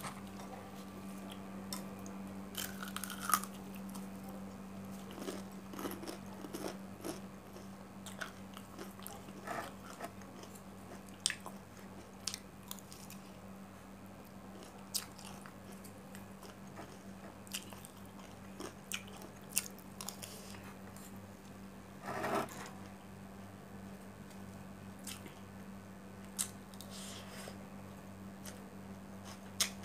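Close-up eating sounds: chewing and crunching of crispy fried chicken, heard as scattered short sharp crunches and clicks, the biggest about two-thirds of the way through, over a steady low hum.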